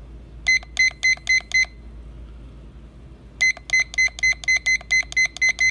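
Supermart wooden LED digital alarm clock beeping with each step of the hour while it is being set: short, identical high beeps, five in quick succession, a pause of nearly two seconds, then an even run of about four beeps a second.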